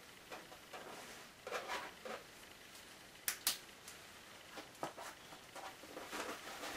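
Papers and a plastic folder being handled: scattered soft rustles and small knocks, with two sharp clicks in quick succession about three seconds in.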